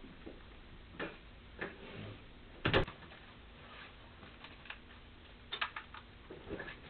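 Scattered soft clicks and knocks at uneven intervals, the loudest a little under three seconds in and a quick cluster of several close together near the end.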